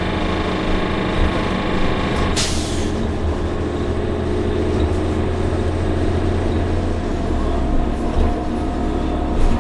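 Interior sound of an Orion VII NG CNG transit bus under way: its Cummins ISL-G natural-gas engine and Allison B400R automatic transmission with a steady low drone. A short burst of air hiss comes about two and a half seconds in, and the low hum shifts about seven seconds in.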